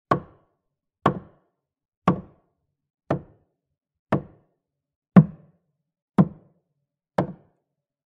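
Hammer striking wood: eight single blows, about one a second, each a sharp knock that dies away quickly, with silence between them.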